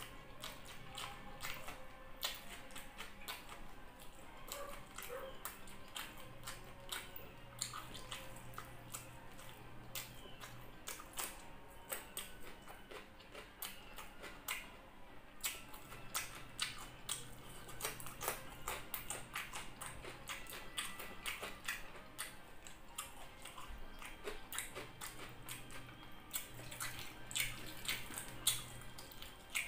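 Close-miked mouth sounds of a person eating with his hands: many small, irregular wet clicks and smacks of chewing, a little louder near the end.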